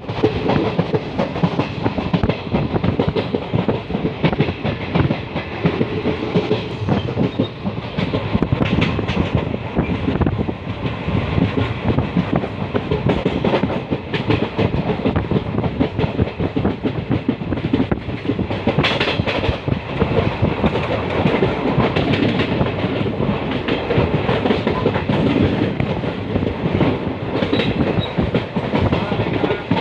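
A loud, continuous clatter of rapid rattles and knocks, with a brief brighter, hissier burst about 19 seconds in.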